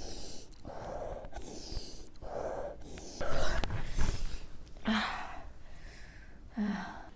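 A person with a bad head cold breathing noisily, a run of wheezy, gasping breaths about once a second. Two short voiced catches come near the end.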